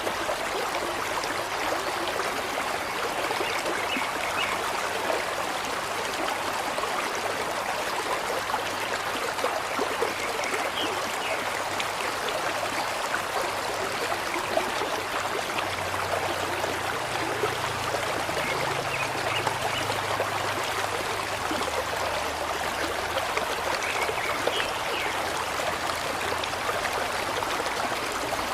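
Steady rushing and babbling of a flowing stream, with a few faint short chirps now and then.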